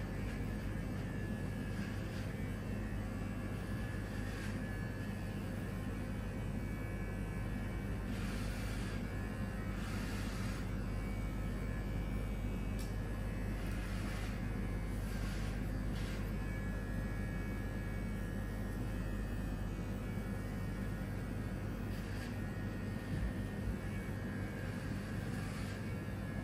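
Electric hair clippers running with a steady low hum, with a few brief rasping sounds in the middle.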